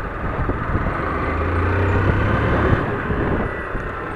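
Honda motorcycle engine running while riding on a dirt road, heard through wind noise on a helmet-mounted camera microphone. A low, steady engine note grows louder about a second in and eases off at about three seconds.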